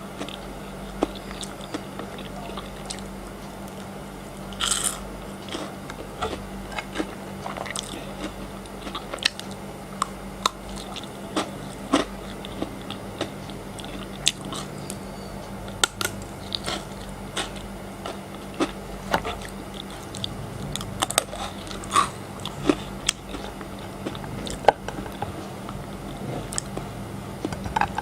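Close-miked biting and chewing of frozen chocolate: irregular crisp cracks and crunches, a few sharper snaps standing out, the loudest near the end, over a faint steady hum.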